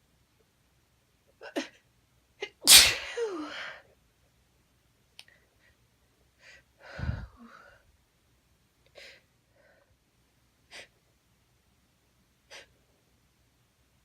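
A woman sneezing, set off by a nose tickled with chhikni snuff. One loud sneeze comes about three seconds in and a second, shorter one about seven seconds in, with quick sharp sniffs before and between them.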